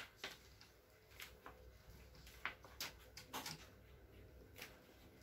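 Faint, scattered light clicks and soft rubbing, about eight in five seconds, as hands press and smooth a new polarizer film flat onto an LCD panel's glass.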